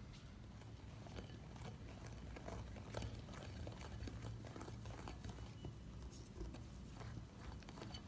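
Faint, irregular clicks and taps of a whisk against a glass bowl as a cocoa and flour mixture is beaten into whisked eggs, over a low steady hum.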